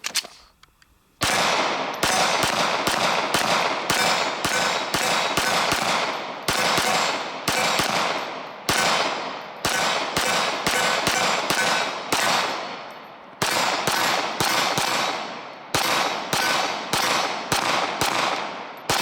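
Glock 19X 9mm pistol firing a long, steady string of shots, about two a second, starting about a second in, each shot followed by a ringing echo. The pistol, fitted with a DPM recoil-reduction guide rod, cycles through a 33-round magazine without a stoppage.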